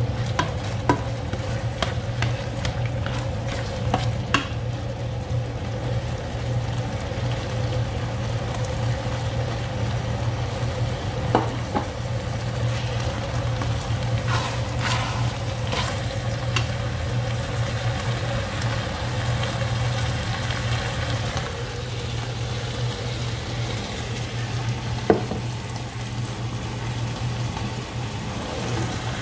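Minced chicken and chorizo tomato sauce sizzling and simmering in a stainless steel pan, stirred with a slotted spoon that taps the pan a few times. A steady low hum runs underneath.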